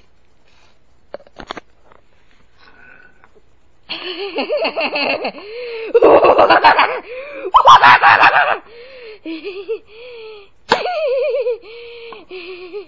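A few faint clicks, then from about four seconds in a person laughing loudly in high-pitched bursts. Near the end the laughter gives way to drawn-out, wavering voice sounds.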